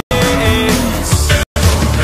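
Background music, an instrumental passage with no singing, that cuts out for an instant twice.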